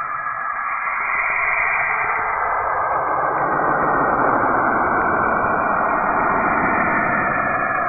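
Space probe radio emissions converted to sound: a steady static-like hiss that spreads lower and grows a little louder about three seconds in.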